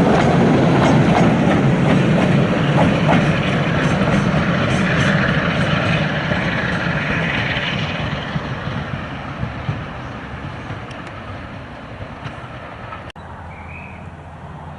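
Diesel-hauled train running past on the rails, wheels clicking over the rail joints, its noise fading steadily as it moves away.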